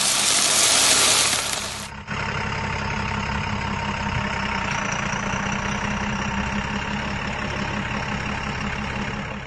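A loud hiss for about the first two seconds that cuts off suddenly, then a heavy diesel engine idling steadily.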